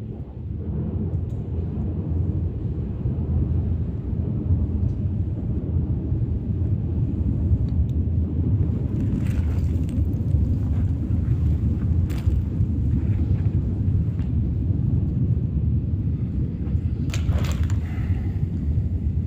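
A loud, steady low rumble, with a few sharp clicks about halfway through and again near the end.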